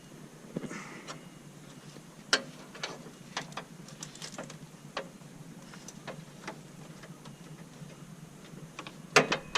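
Irregular clicks and knocks of hand tools and parts as the radiator's mounting covers are fitted, the sharpest about two seconds in and a quick cluster near the end.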